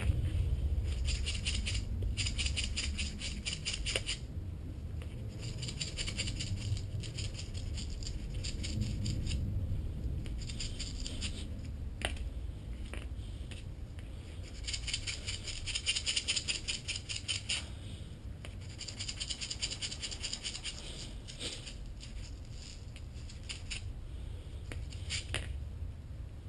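Old brake caliper slide pins being scrubbed clean by hand, in repeated bursts of rapid scratching strokes with short pauses between them.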